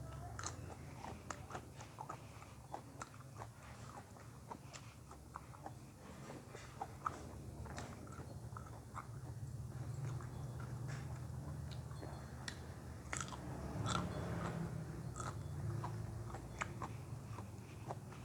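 A person chewing and crunching food close to the microphone, with many short wet mouth clicks and crunches.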